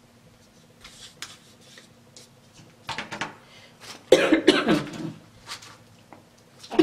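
A woman coughing several times while eating, in bursts about three seconds in, a longer fit around four to five seconds in, and one more near the end, with light clicks of a utensil on a plastic container before the coughing starts.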